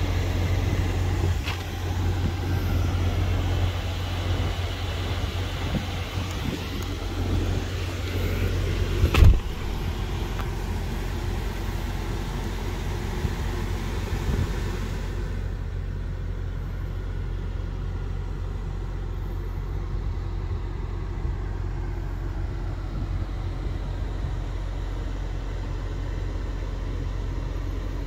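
Steady low rumble of the truck's Duramax diesel idling. A single sharp knock comes about nine seconds in, and the background hiss thins out around fifteen seconds in.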